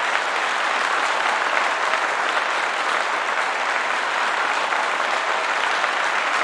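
Large audience applauding, a dense steady clapping that holds at one level throughout.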